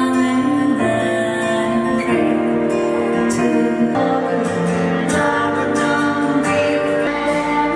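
A woman singing into a microphone over backing music, played through PA speakers.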